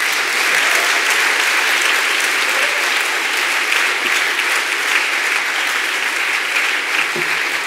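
Audience applauding, with dense steady clapping that eases slightly near the end.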